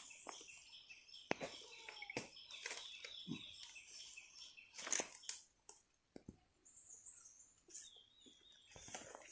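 Faint bird chirping with scattered sharp clicks and knocks.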